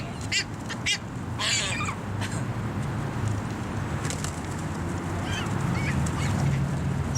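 Birds calling: a few short, sharp calls in the first two seconds, then fainter ones later, over a steady low rumble.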